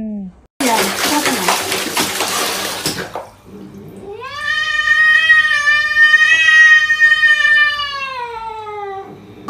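Water splashing and sloshing in a plastic basin for about two and a half seconds. Then a cat gives one long, drawn-out yowl of about five seconds that rises in pitch at the start and falls away at the end.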